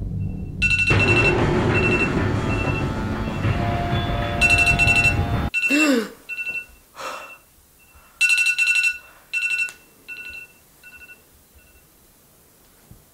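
Electronic alarm beeping, short high beeps repeating in groups. For the first five and a half seconds a loud low rumble with a few held tones lies under it and then cuts off abruptly. After that the alarm beeps on alone, with a brief gliding vocal sound, and stops shortly before the end.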